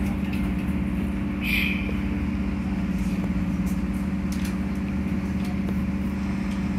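Steady hum of a SEPTA Broad Street Line subway car standing at a station, with a brief hiss about a second and a half in and a few faint clicks.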